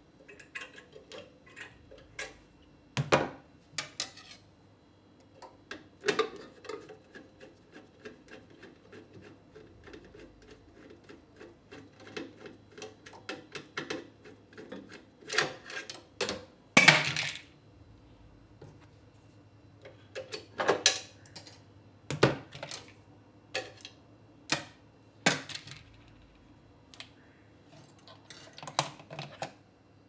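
Pliers and small metal hand tools clicking, snapping and clattering against the microwave's wiring and chassis as the high-voltage diode is unhooked and removed, in irregular clicks with a few louder knocks.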